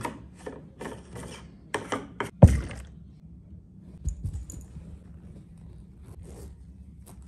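Objects being handled: a quick run of clicks and scrapes, a heavy thump about two and a half seconds in and a softer low thump about a second later, then a few faint ticks.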